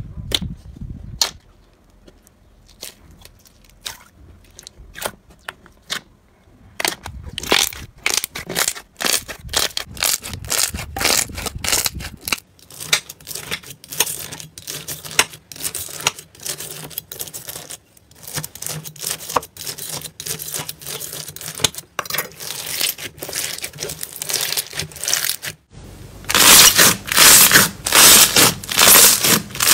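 Hands working slime: sparse wet clicks and pops at first, then a thicker run of crunchy crackling as a slime packed with beads is cut with a knife. Near the end a crunchy slime is squeezed, and the crackling gets loud and dense.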